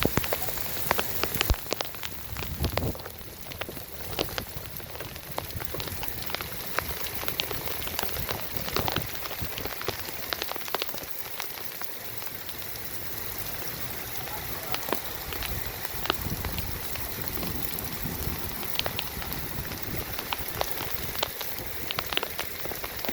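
Rain falling steadily, with many individual drops ticking sharply against a surface over an even hiss.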